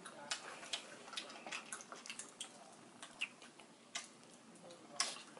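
Close mouth sounds of eating fried chicken wings: chewing, lip-smacking and fingers pulling at the meat, heard as a run of small, irregular wet clicks and smacks, with a sharper click near the end.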